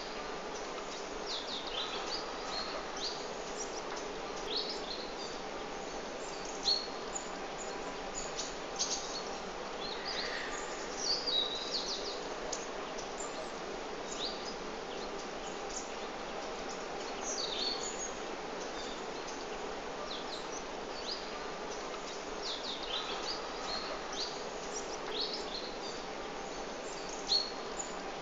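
Birds chirping: many short, high chirps scattered throughout, over a steady low background hum.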